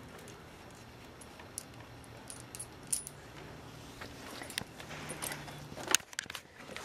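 Metal dog tags on a collar jingling and clinking in short, irregular bursts as the dog moves about, with one sharper clink about six seconds in.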